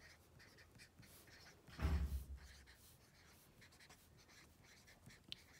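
Felt-tip marker writing on paper: faint, scattered scratches and taps as the letters are drawn. About two seconds in comes a brief, dull bump, louder than the writing.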